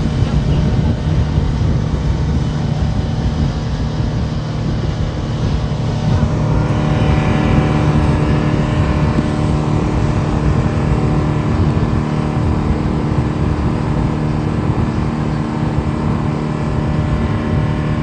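Speedboat outboard motor running at speed, a steady engine hum over the rush of spray and churning wake. About six seconds in, a higher engine tone joins and the hiss of water grows louder.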